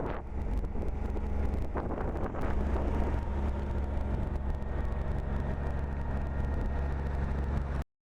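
Catamaran's engine running steadily under way, a strong low hum with a few faint steady tones above it, over rushing wind and water noise; it cuts off suddenly near the end.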